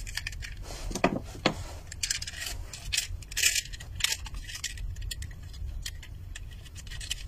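Switch-box repair bracket and its screw handled and fitted by hand onto a plastic wall switch panel: scattered light clicks and small metallic rattles.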